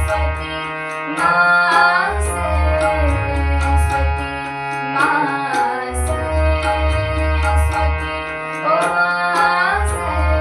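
Indian devotional music: a steady held drone over a low pulsing drum beat with light percussion ticks, and an ornamented melodic line that swells in three times.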